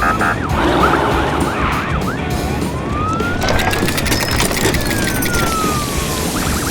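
Cartoon emergency-vehicle siren: a few quick up-and-down wails, then one long wail rising for about two seconds and falling away.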